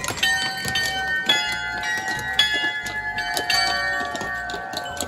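Small carillon of bells in a wooden frame on a horse-drawn float, struck in a quick run of notes at different pitches, each bell ringing on and overlapping the next.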